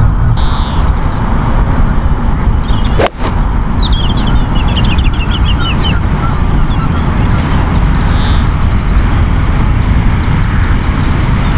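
Wind buffeting the microphone in a steady low rumble. About three seconds in, a single short crisp click as a 7-iron strikes the golf ball. Birds chirp faintly in short trills.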